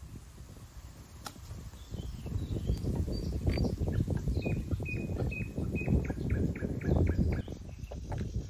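A small songbird calling in a series of short, repeated high notes over close, irregular rustling and crackling that gets louder about two seconds in.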